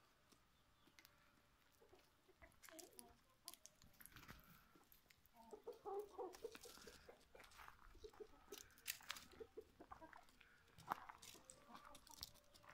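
Chickens clucking faintly in short calls, bunched a few seconds in and again near the end, with scattered sharp clicks and scuffs from their feet and pecking on gravelly ground.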